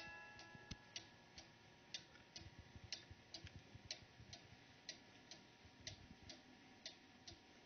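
Faint tick-tock of an August Schwer 8-day Black Forest cuckoo clock's mechanical movement, a little over two ticks a second. The last note of its music box dies away at the start.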